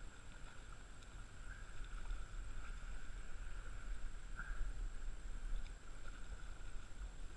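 Muffled wind rumble and water lapping, with faint small splashes from a hooked striped bass thrashing at the surface.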